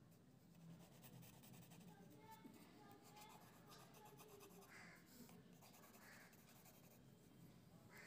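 Near silence, with the faint scratching of a graphite pencil shading on paper.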